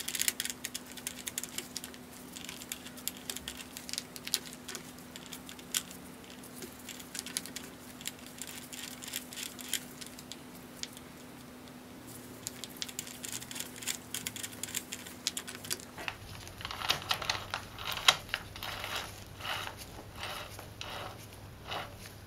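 Light metallic clicks and taps of transmission gears and shafts being handled and seated in a 1969 Honda CL160's aluminium crankcase, coming more thickly in the last few seconds.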